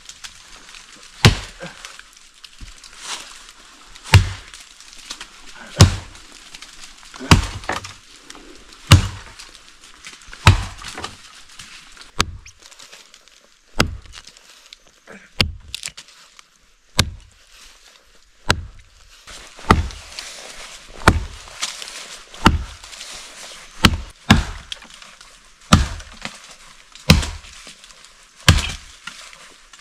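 Wood being chopped with a blade. There are sharp, regular chops about every one and a half seconds, each one a hard blow into wood.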